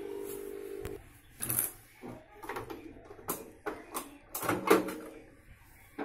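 LG MH-4049JL microwave oven running with a steady electrical hum while it heats, cutting off about a second in. Then a series of sharp clicks and knocks as the door is opened and the oven is handled, the loudest near the end.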